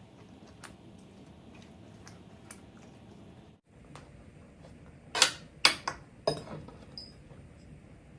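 Sharp clicks and knocks of tableware during a meal: a few faint clicks, then three loud knocks in quick succession about five to six and a half seconds in, and a softer one just after.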